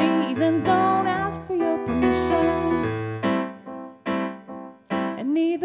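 A wordless passage of a live pop song on piano, chords struck and left to ring and fade, with a few gliding melodic notes over them.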